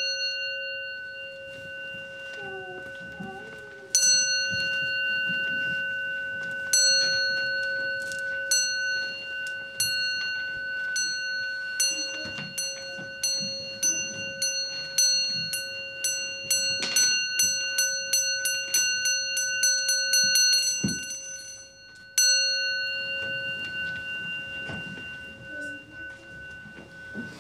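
A Zen temple bowl bell struck and left ringing, struck again twice a few seconds apart, then in a roll of strokes that speed up until they run together, ending with one last strike that rings out. It is the ceremony bell signalling the bows. Soft rustling of people moving comes underneath.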